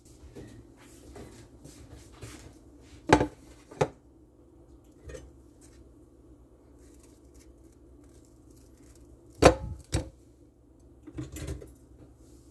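Kitchen handling sounds around a toaster: a few sharp knocks and clatters, a pair about three seconds in and a louder pair about nine and a half seconds in, with softer clattering near the end.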